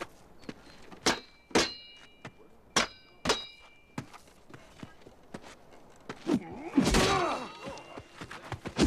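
Sword-fight strikes: four sharp metallic hits in the first half, each leaving a short ringing tone like a clashing blade, then a louder, denser stretch of impacts and sweeping noise from about six seconds in, ending on another ringing strike.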